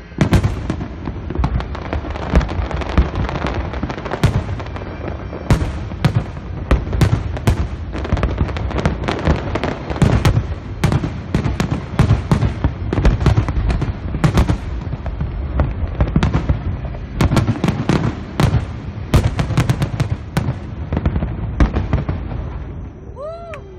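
Aerial fireworks going off in a dense, rapid barrage of booming shell bursts and crackles, one on top of another. The barrage stops near the end.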